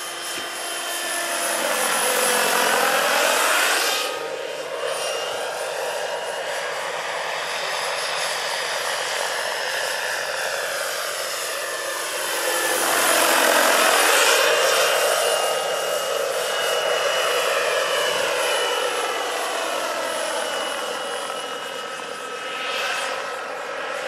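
Scale model Eurocopter EC-120 helicopter powered by a Jakadofsky Pro 6000 model turbine in flight, a steady high turbine whine under the rotor noise. The sound swells and sweeps in pitch as it passes close, around three seconds in and again around thirteen to fourteen seconds in.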